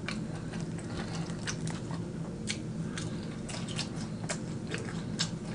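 A person biting into and chewing rotisserie chicken close to the microphone: scattered short wet mouth clicks and smacks over a steady low hum.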